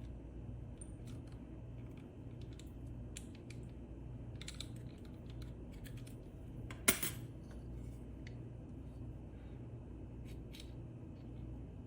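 Small clicks and light metallic clinks of hands handling tools and small extruder parts, with one sharp, louder click about seven seconds in, over a steady low hum.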